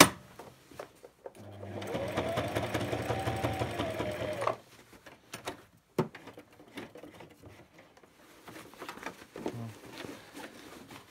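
Brother SM2700 sewing machine stitching across the end of a name tape for about three seconds. Its motor speeds up, runs steadily with rapid needle strokes, then slows and stops. A sharp click comes at the very start and another about six seconds in, followed by quieter handling sounds of the fabric and machine.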